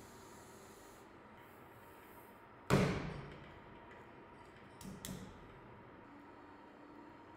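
A lump of clay is slammed down onto a bat on the potter's wheel: one loud thud with a short ringing tail about a third of the way in. Two lighter thuds follow a couple of seconds later as it is pressed down.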